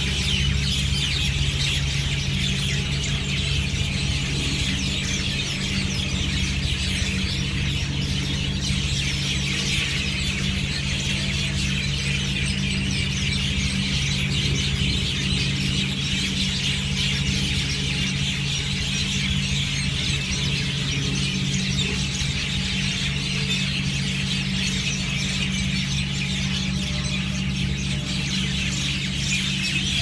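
A large flock of birds chirping in the palm trees, many calls overlapping into a dense, unbroken chorus of high chirps. A steady low hum runs underneath.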